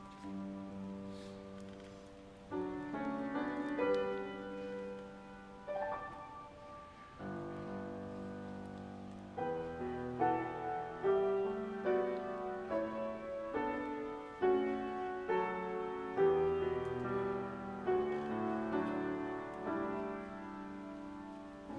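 Grand piano playing a slow introduction of held chords. About halfway through it grows louder and busier, with notes struck roughly once a second.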